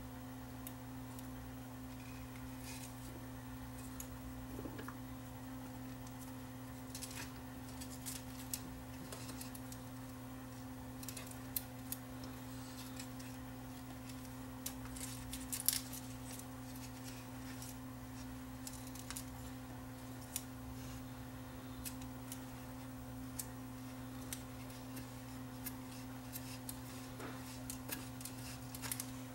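Faint scattered clicks and rustles of fingers handling an open 8-track cartridge's plastic housing and its tape during a splice, with a sharper click about halfway through, over a steady low hum.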